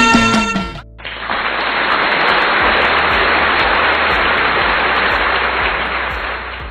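Background music cuts off a little under a second in, followed by an even hiss of hot oil sizzling in a kadai after a batch of masal vadai is lifted out, fading slightly toward the end.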